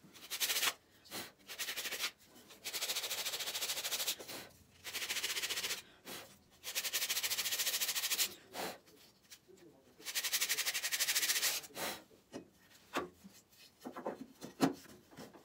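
Sandpaper wrapped on a wood block being rubbed along the edge of a table-saw insert: six long scratchy passes of a second or two each, to make the insert sit level in the throat opening. Near the end, a few light clicks and knocks as the insert is set into the opening.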